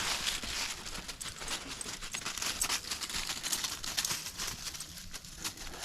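Footsteps rustling and crunching through grass and brush: an uneven run of swishes and crackles.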